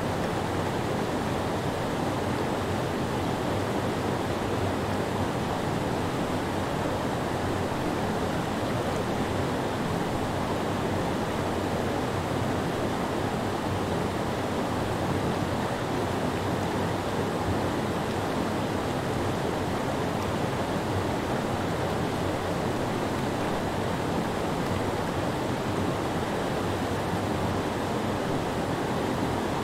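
Whitewater rapids rushing over basalt ledges in a creek: a steady, unbroken roar of tumbling water.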